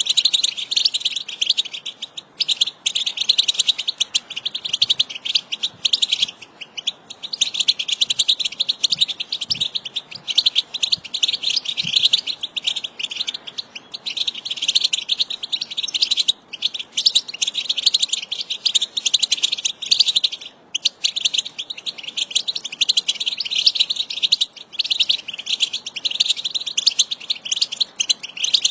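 A flock of European goldfinches twittering: a dense, continuous chatter of many overlapping high chirps, broken by a few brief pauses.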